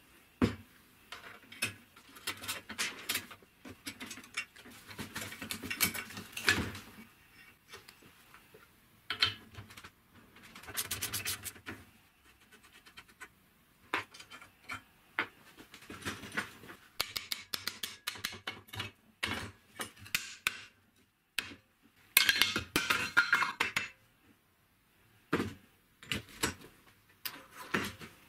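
Steel clinks, taps and scrapes as the brake shoes, return springs and hardware are worked off a rusty drum-brake backing plate. About halfway through there is a fast, even run of clicks, and a longer scraping clatter follows a few seconds later.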